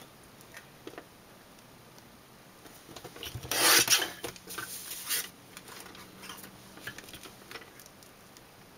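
Sliding-blade paper trimmer cutting a cardstock panel: one loud scraping stroke of the cutter head along its rail, lasting about a second, some three and a half seconds in. Lighter scrapes and small taps follow as the paper is shifted on the trimmer.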